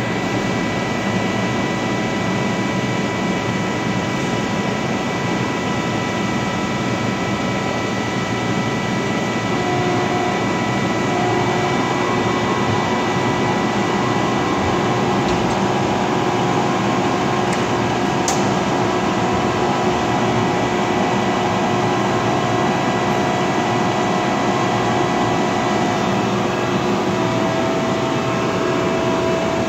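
Giddings & Lewis G50-T CNC horizontal boring mill running under power: a steady machine hum with several steady whining tones. A new set of higher tones comes in about ten seconds in.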